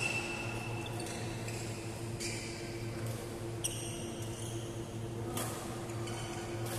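Badminton rally: rackets striking the shuttlecock a second or two apart, echoing in a large hall, with short shoe squeaks on the court floor over a steady low hum.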